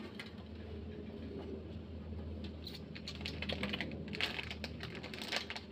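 Clear plastic mooncake wrapper and tray crinkling and clicking in a quick, irregular run, thicker in the second half, as it is worked open. A low steady hum sits underneath.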